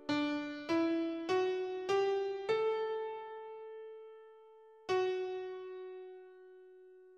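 Piano playing the first five notes of a major scale, rising step by step a little under two notes a second. About two seconds later a single note from among them sounds and is left to ring and fade: the fourth degree of the scale, given as the test note for the candidate to name.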